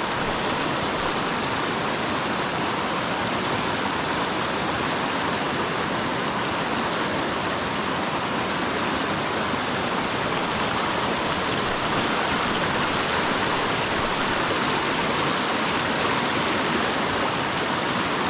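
Steady rush of flowing river water, an even noise that holds the same level throughout.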